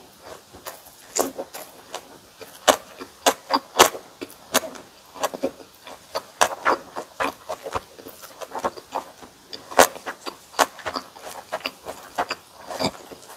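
Close-miked eating of kimchi and bossam: irregular crisp crunches and wet chewing, a few each second.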